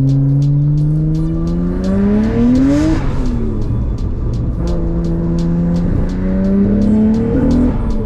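Nissan R32 GT-R's RB26 twin-turbo straight-six, heard from inside the cabin, pulling hard under boost: the engine note rises in pitch, breaks off about three seconds in, then climbs again and breaks off near the end. The car is misfiring at full boost, a fault the owner says is usually a spark plug or coil pack.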